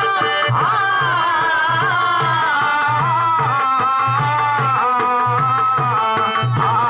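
Live folk music for a shadow-puppet play: a woman singing a wavering, ornamented melody over a drum beating about twice a second and a steady held drone.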